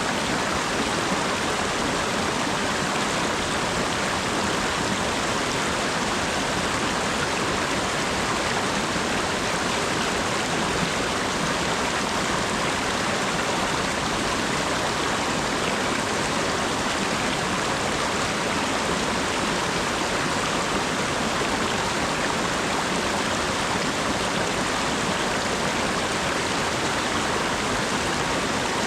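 Steady rainfall: a dense, even hiss of rain with no single drops standing out.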